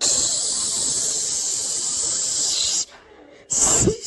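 A loud, steady hiss that cuts off sharply after nearly three seconds, then a shorter burst about half a second later.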